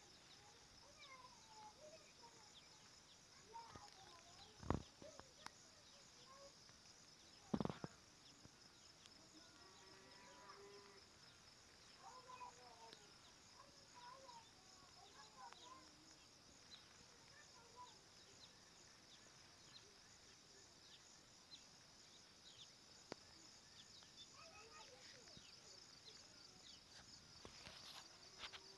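Faint, steady high-pitched chirring of insects, with scattered faint chirps and two sharp knocks about five and eight seconds in.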